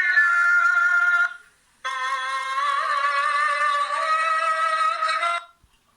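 Music with long held vocal notes. It breaks off for about half a second a little over a second in, resumes, and ends about five and a half seconds in.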